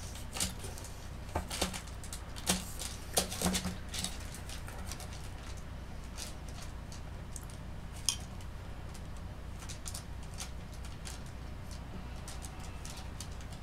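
Scattered light clicks and taps of sculpting tools being handled on a work table: a wooden modelling tool and metal loop tools picked up and set down. The clicks are many in the first four seconds and few after, over a steady low hum.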